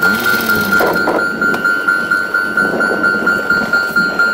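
Railway level crossing alarm ringing, one bell tone struck over and over at a quick even rate. A short hiss sounds in the first second.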